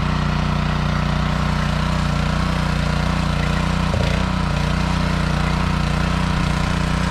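Small petrol rotavator (garden tiller) engine running steadily as its tines churn up soil.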